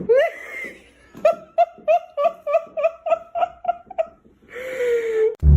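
High-pitched laughter: a short rising whoop, then a quick run of about a dozen short "ha"s at three or four a second, ending in a longer falling breathy sound.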